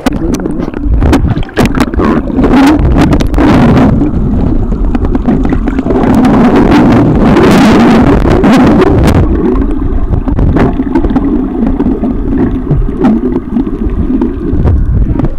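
Muffled underwater rumble heard through a camera held below the surface, with scattered knocks on the housing and a louder rushing of water about halfway through.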